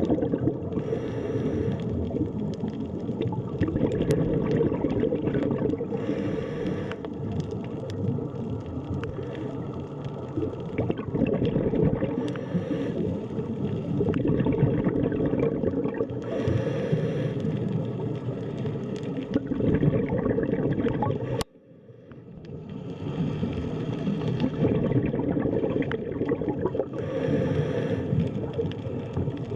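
Underwater sea ambience: a steady low rush of water with swells of bubbling every few seconds. It cuts out abruptly about 21 seconds in and fades back up.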